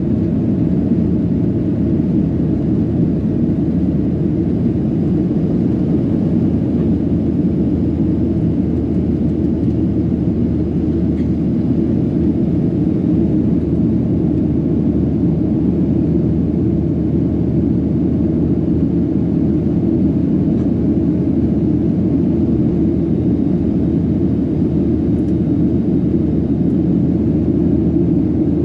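Nok Air airliner after take-off: a steady, loud, low rumble of engines and airflow that holds even throughout.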